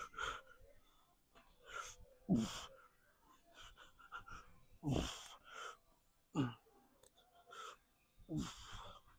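A man's hard, effortful exhales with short grunts every couple of seconds, each grunt falling in pitch, as he strains through a set of arm curls.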